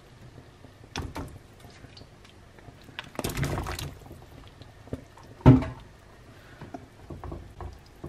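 Chunks of corn on the cob tipped from a bowl into a pan of hot water, splashing about three seconds in, with knocks against the pan. The loudest is a sharp knock about halfway through.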